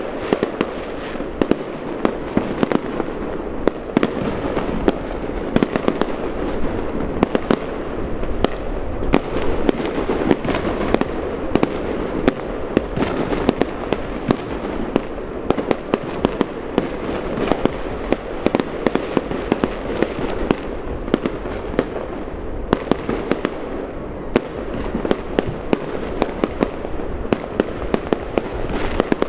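Fireworks crackling and popping, a dense, unbroken run of sharp cracks that turn crisper and brighter in the last few seconds.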